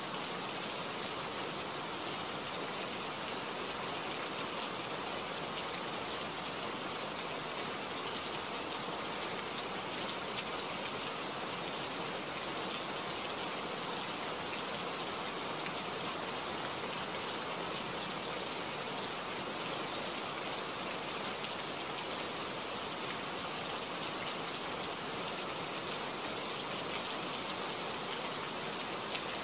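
Steady rain falling: an even, unbroken hiss with scattered faint drop ticks, and no thunder.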